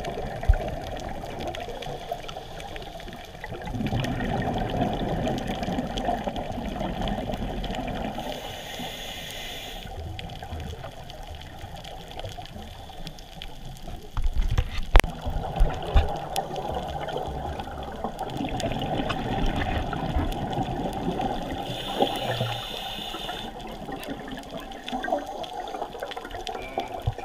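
Scuba breathing picked up through an underwater camera: a gurgling rush of exhaled regulator bubbles that swells and fades, with a short hiss of inhalation twice. A few sharp knocks about halfway through.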